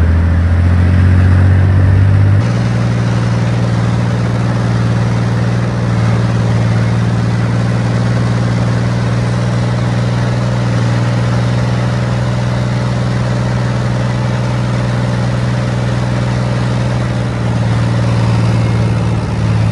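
Engine of an armoured vehicle running under way, heard from on top of the hull. The engine note steps up in pitch about two seconds in, then holds steady.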